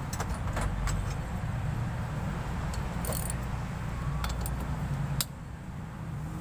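A vehicle engine runs with a steady low hum that drops away about five seconds in. Scattered metallic clicks and clinks of hand tools on engine parts sound over it.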